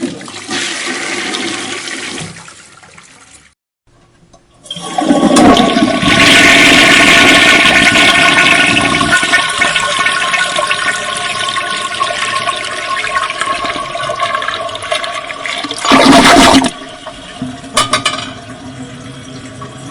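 Toilet flushing. A loud rush of water starts about five seconds in and is strongest for the next few seconds, then eases into a steadier, quieter water noise. There is a brief loud surge of rushing noise near the end, followed by a few clicks and a softer steady hiss.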